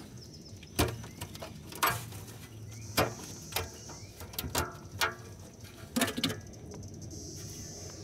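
A handful of sharp clicks and knocks, spaced about a second apart: the metal cover of a bus's under-body fuse box being unlatched and taken off.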